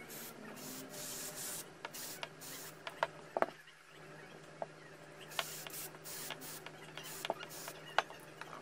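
The small DC motor from a Bosch 18V cordless drill handled and turned by hand on a disposable face mask: repeated bursts of rubbing and scraping, with a few sharp light clicks, over a faint steady hum.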